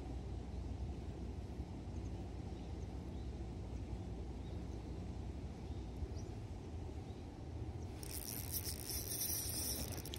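A spinning reel is cranked steadily to retrieve a small spoon lure, under a low steady rumble. About eight seconds in, splashing starts as a hooked trout thrashes at the surface.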